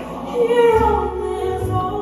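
Gospel music: a woman singing a slow melody over a band, with low bass notes coming in about half a second in.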